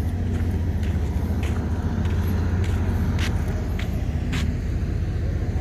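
Steady low drone of large generators running, with a few faint clicks.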